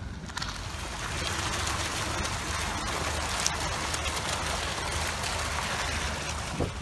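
Water gushing and splashing into a small pool, a steady hiss that starts just after the beginning and eases off near the end.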